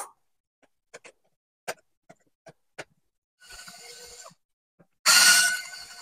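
A few faint handling clicks, then a Black+Decker cordless screwdriver's motor whirring in two runs, a short one about 3.5 s in and a louder one starting about 5 s in that tails off, driving out the mounting screws of a wall switch.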